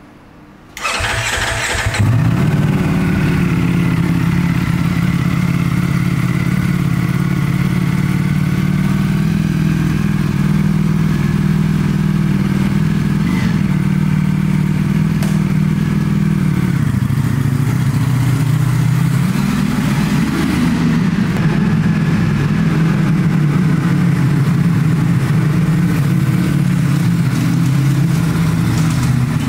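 Ducati motorcycle engine cranked and catching about a second in, then idling steadily, with a couple of light throttle blips past the middle.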